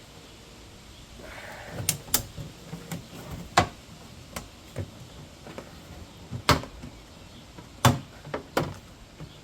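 Irregular sharp clicks and knocks of plastic parts being handled and worked loose inside an open car door. The loudest come a little over a third of the way in and twice more in the second half.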